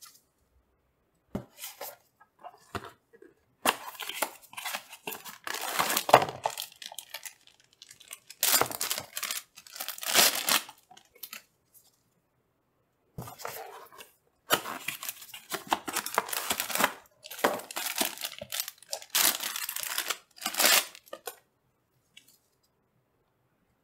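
Packaging being torn open and crinkled in irregular bursts of a second or two, with short pauses, as three PC cooling fans are unwrapped from their box.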